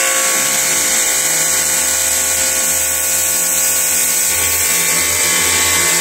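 Ryobi electric pressure washer running steadily: a motor and pump hum under the loud hiss of the high-pressure water jet spraying a seatbelt.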